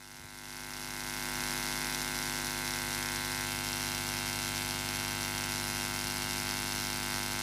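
Steady electronic buzz from the keyboard and sound-system setup, a dense set of held tones that swells up over the first second and a half and then holds level.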